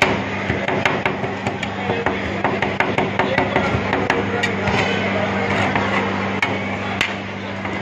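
Two steel spatula-scrapers chopping rapidly on a stainless-steel cold plate, a quick run of metal-on-metal clacks as chocolate pieces are broken up for rolled ice cream. The strikes thin out to a few single knocks after about five seconds.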